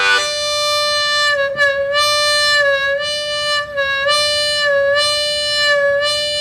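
Ten-hole diatonic harmonica sounding a held, tongue-blocked draw note on hole 4. The note is bent slightly flat and let back up about once a second, so the pitch wavers.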